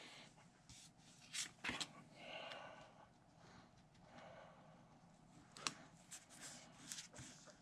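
Near silence with faint handling sounds: a few light clicks and soft rustling from hands working close by.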